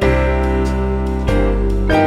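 Background music: soft piano-style chords, with new chords struck about a third of the way in and again just before the end.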